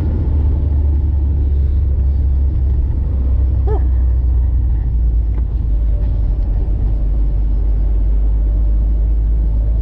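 Car on the move: a loud, steady low engine and road drone.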